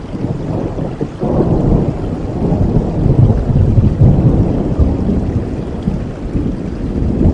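Steady rain with a long roll of thunder that breaks in about a second in, rumbles low for several seconds and slowly eases off.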